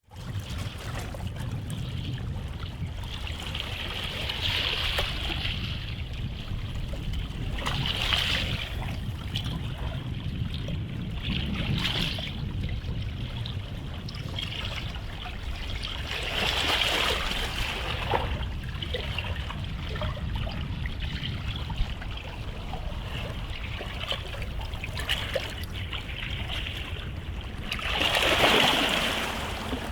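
Small sea waves washing onto the shore, each wash swelling and fading every few seconds, the loudest near the end, over a steady low rumble.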